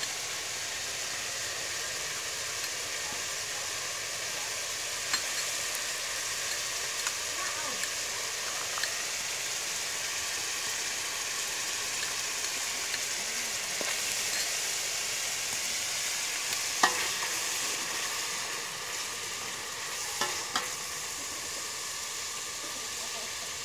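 Pork pieces sizzling steadily in their rendered fat in an aluminium pot, with a few sharp clicks now and then.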